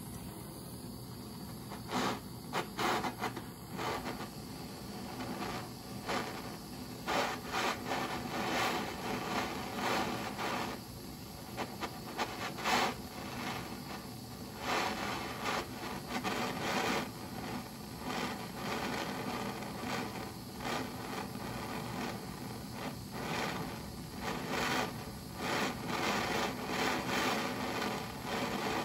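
Hand-held propane torch burning with a steady hiss, with irregular short rubbing and scraping strokes over it as a chisel is worked in and out of the flame.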